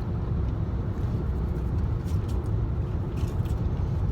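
Steady low rumble of road and engine noise inside a moving car's cabin, with a few faint ticks near the end.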